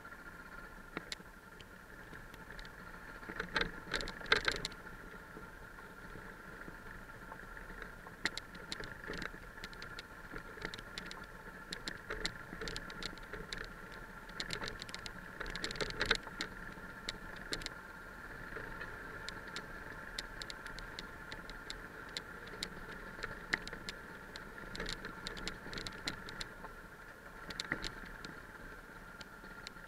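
Yamaha 660 single-cylinder trail motorcycle running steadily along a rough gravel track. Frequent sharp clicks and knocks of the bike rattling over stones run on top of it, heaviest about four seconds in and again midway.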